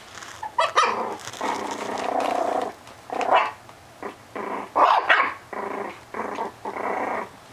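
Four-week-old puppies growling and barking at each other in play: a string of short, high calls, one of them held for about a second.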